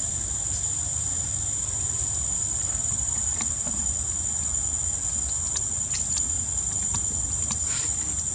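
Steady high-pitched insect drone, one unbroken whine from crickets or cicadas, over a low rumble, with a few faint clicks scattered through it.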